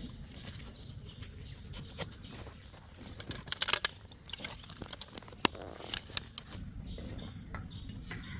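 Metal climbing and rigging hardware clinking and jangling as it is handled, with a burst of sharp clicks and clinks in the middle.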